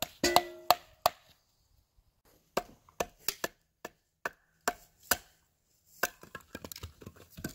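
Wood striking wood: a birch log used as a mallet knocks down on the top of an upright stick to split it. There are a dozen or so sharp wooden knocks at uneven spacing, with a run of quicker, lighter taps near the end.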